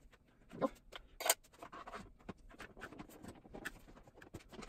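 Hand-work noises on a motorcycle's plastic bodywork and hoses: scattered light clicks, taps and scraping, with a few sharper clicks near the start and about a second in.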